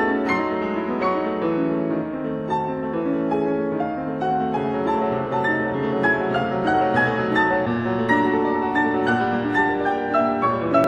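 Background piano music with a steady flow of notes over a low bass line.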